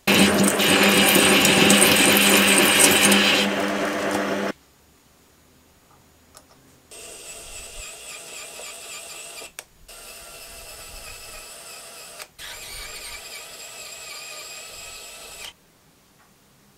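Small metal lathe running and cutting an aluminium pulley: a steady motor hum under loud cutting noise that stops after about four and a half seconds. After a pause, a SEQURE SQ-ES126 electric screwdriver whines in three separate runs of about three seconds each, driving three screws into the pulley.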